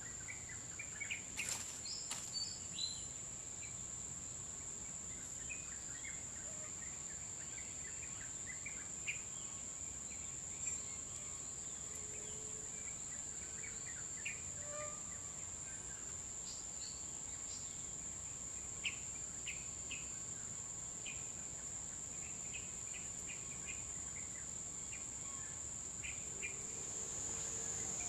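Steady high-pitched insect chorus in tropical forest, one unbroken shrill tone, with scattered short bird chirps over it.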